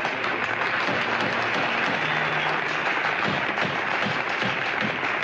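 Audience applauding steadily, with a few voices among the clapping. A wooden gavel raps on the rostrum several times in the second half.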